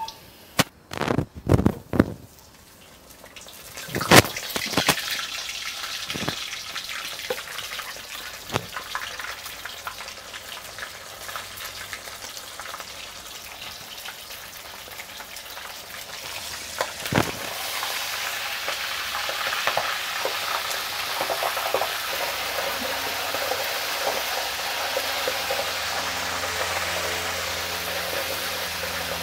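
A few knocks at the start and a sharp clack about four seconds in, then flour-coated mud crab pieces deep-frying in hot oil in a wok: a steady sizzle that grows louder over the second half.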